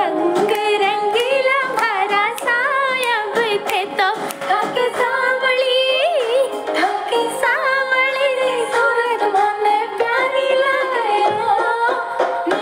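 A song playing, with a woman singing a melody full of quick sliding, wavering ornaments over the accompaniment.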